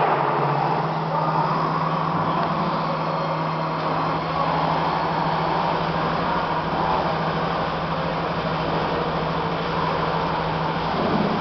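5-axis CNC router spindle running steadily while it cuts into foam: a constant hum with a hiss of cutting noise over it.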